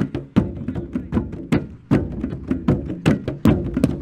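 Moluccan tifa drums struck with sticks in a driving rhythm of sharp strikes, two to three a second, over low ringing tones from the totobuang gong-chimes.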